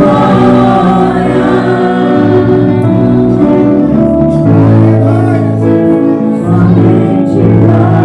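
Gospel worship music: a praise team of voices singing together in choir style, holding long sustained notes, with strong low notes entering about halfway through.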